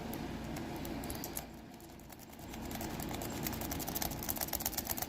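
Fast, irregular clicking and rattling of a triple-peak Bogota rake being worked in and out of a Best lock core, the pick skipping over the pin stacks. The clicking starts about a second and a half in, after a quieter stretch.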